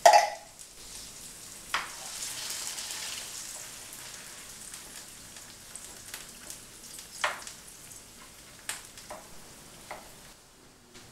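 Peeled tomatoes and mushrooms sizzling in a hot frying pan, with a loud hiss at the very start as the tomato and its liquid hit the pan. A utensil stirs the sauce, knocking sharply against the pan a few times.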